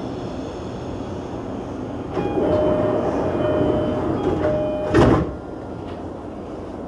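E233 commuter train's door-closing chime, a two-note signal repeated about three times, then the sliding doors shutting with a single thud about five seconds in, as the train readies to leave the station.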